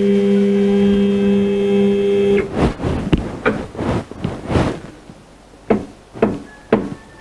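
Stepper motor driving the CNC mill's table axis, a steady whine that cuts off sharply about two and a half seconds in. Then a string of sharp, irregular taps and knocks as the plate is tapped into square against the dial indicator.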